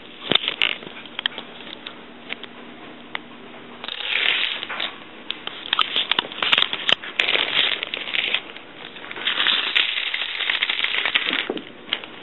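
Hollow plastic toy dominoes toppling in a chain, a rapid clicking clatter of tile striking tile. Scattered single clicks at first; from about four seconds in it comes in dense runs, easing off briefly between them.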